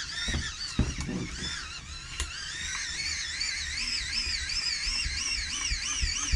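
Wind-up radio's hand crank and dynamo being turned hard, giving a high whine that rises and falls about three times a second with each turn of the handle. There are a few knocks in the first second.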